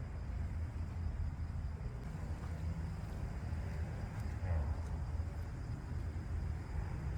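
Steady low rumble of outdoor background noise, with a slight brief swell about four and a half seconds in.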